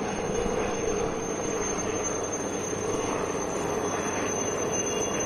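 HAL Chetak (Alouette III-type) helicopter close overhead: steady rotor and turbine noise with a thin high whine held above it.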